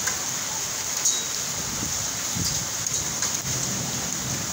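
Heavy rain falling steadily as an even hiss on a waterlogged street and the surrounding surfaces. A brief click comes about a second in, and a faint low rumble runs underneath in the middle.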